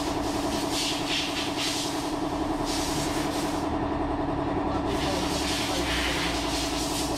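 A machine running steadily at a constant pitch, with hissing that comes and goes on top.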